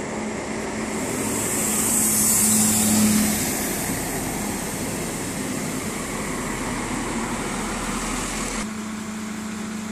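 Bayerische Regiobahn Alstom Coradia LINT diesel multiple unit running slowly into the station past the listener: a steady engine hum under wheel-on-rail noise, loudest about two to three seconds in. Near the end the higher noise cuts off abruptly and only the engine hum remains.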